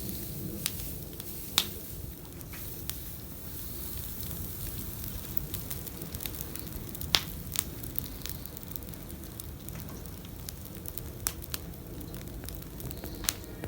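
Wood campfire crackling, with sharp irregular pops over a low steady hiss; the loudest pops come about a second and a half in and about seven seconds in.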